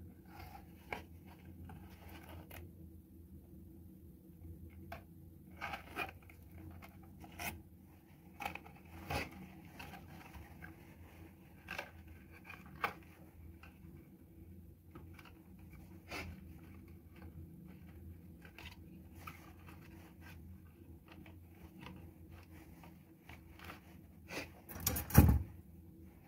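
Handling noises of aluminium bonsai wire being worked through a plastic bonsai pot: scattered clicks, scrapes and rustles of wire and plastic, with a louder clatter about a second before the end.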